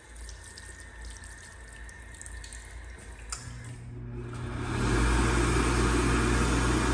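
ASI Nova 4 hand dryer starting up: a low motor hum comes in a little over three seconds in and builds over about a second and a half into the loud, steady rush of its blower running at full power.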